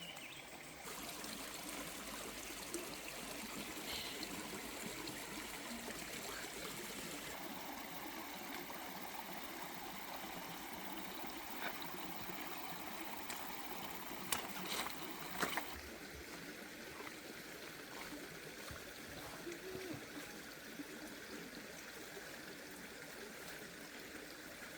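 Running water, trickling steadily, with a few sharp clicks a little past the middle. Its character changes abruptly about a second in and again later on.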